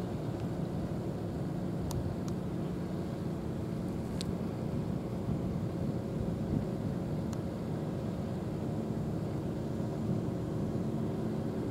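A steady low mechanical drone holding a constant pitch, with a few faint, short high ticks scattered through it.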